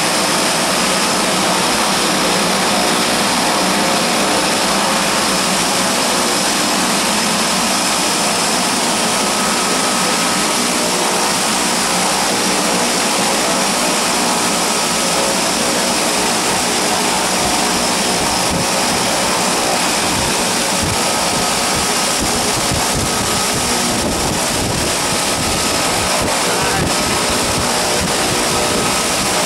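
De Havilland Twin Otter's two turboprop engines running steadily at close range, with a steady whine over the propeller noise. In the second half, wind buffets the microphone.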